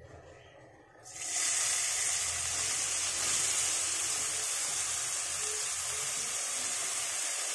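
Chopped onions hitting hot oil in a kadai, bursting into a sizzle about a second in and then sizzling steadily.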